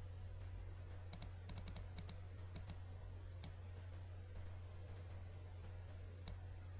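Light clicking at a computer: a quick run of about a dozen short clicks in the first few seconds and a single click near the end, over a steady low electrical hum.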